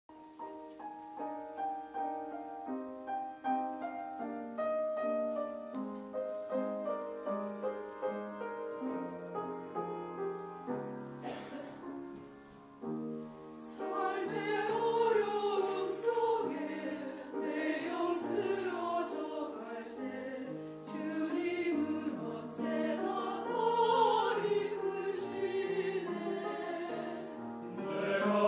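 A mixed-voice church choir singing in several parts, entering about halfway through after a keyboard introduction of held chords and melody.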